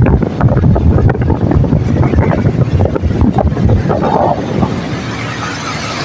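Wind buffeting hard on the microphone of a moving rider, with road and traffic noise underneath; the buffeting eases a little near the end.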